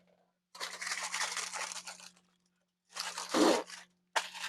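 Rustling and crunching of food packaging being handled, lasting about a second and a half. A second burst about three seconds in ends in a dull thump.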